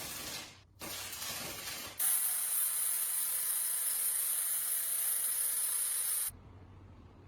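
A pressurised spray hissing: two short bursts, then a steady spray about four seconds long that cuts off suddenly.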